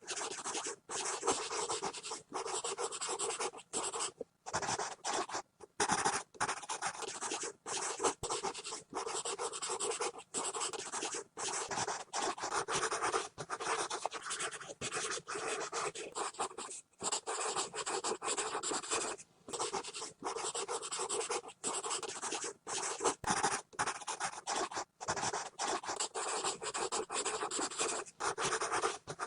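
Pencil scribbling hard and fast on paper: continuous scratching strokes broken by many brief gaps where the lead lifts off the page.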